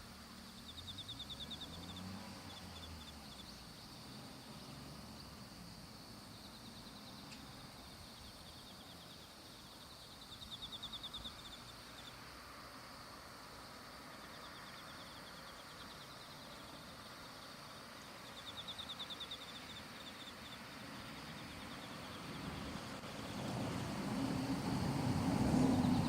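Quiet rural outdoor ambience with short, high, rapidly pulsed trills repeated several times, the first about a second in and others near the middle and two-thirds through. A low rumble grows steadily louder over the last few seconds.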